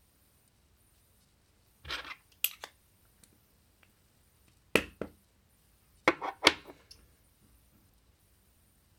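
A few sharp clicks and knocks, spread out, from a small round tin of lip product being handled and its lid worked.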